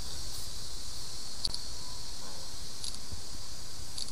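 Outdoor insect chorus: a steady high-pitched trilling, with a few short, louder chirps about a second and a half apart, over a low rumble of outdoor background.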